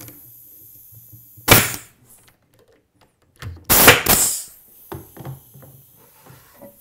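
Ridgid stapler firing staples into a cabinet's wooden nailer strips: one sharp shot about a second and a half in, then two more in quick succession about four seconds in, followed by a few light knocks.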